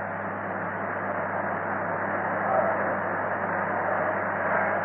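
Steady hiss with a low hum beneath it: the background noise of an old, narrow-band voice recording.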